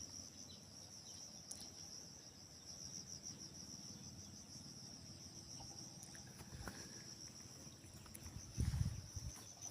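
Insects chirring steadily in a high, fast-pulsing trill. Near the end a brief low thump or rumble breaks in.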